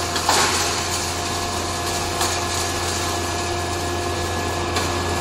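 Electric wood sawdust machine running: a steady hum and whine from its large motor and spinning blade rotor, with a few short crackles.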